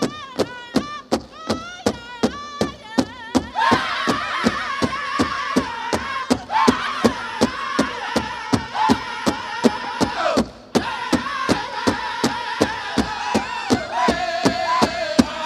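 Powwow drum and singers: a big drum struck in steady unison at about three beats a second, with men's voices singing over it. A single voice leads at first, the full group joins about three and a half seconds in, and the sound cuts out for a split second about ten seconds in.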